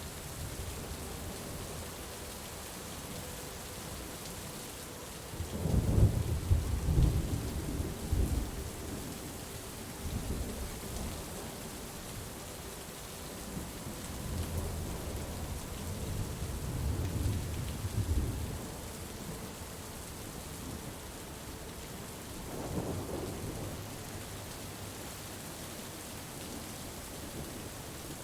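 Steady falling rain with low rolls of thunder, the loudest about six seconds in and weaker ones in the middle and near the end.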